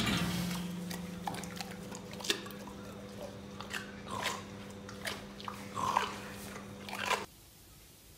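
A pig crunching and chewing a carrot: many sharp, irregular crunches over a steady low hum, stopping suddenly about seven seconds in.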